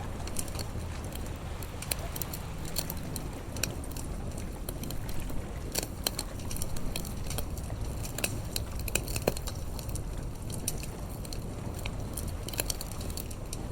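Wood campfire crackling, with frequent irregular sharp pops over a steady low rumble.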